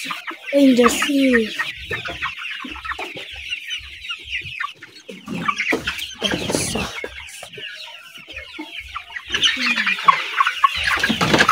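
Chickens clucking and calling throughout, with short high cries. There is a burst of rustling and wing flapping about halfway through as a hen is grabbed and handled.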